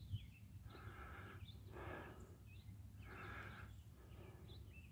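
Faint, quick breathing, about four breaths a second or so apart, the last one softer, with small bird chirps in the background.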